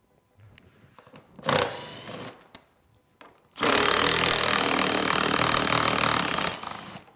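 Power drill running briefly, then running steadily for about three seconds while it removes the fasteners holding the side fenders and rear box on a UTV.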